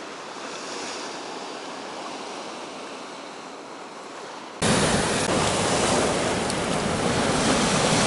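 Steady rush of storm surf and wind. A little past halfway it jumps suddenly to a much louder, heavier rush with wind buffeting the microphone.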